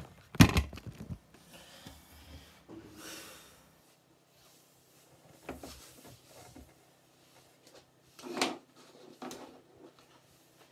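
A phone being handled and knocked against a turned wooden post as it is propped up: a loud cluster of knocks and scrapes about half a second in. A few softer short knocks and rustles follow, the strongest about eight seconds in.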